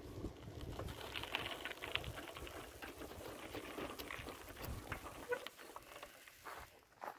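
Footsteps crunching through dry leaf litter: an irregular run of small crackles and rustles, with a low rumble on the microphone that stops about five seconds in.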